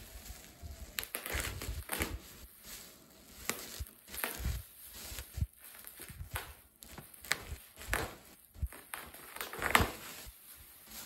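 Bubble wrap crinkling and crackling as it is cut with scissors and pulled off a cardboard box, with irregular sharp clicks and the loudest crackle near the end.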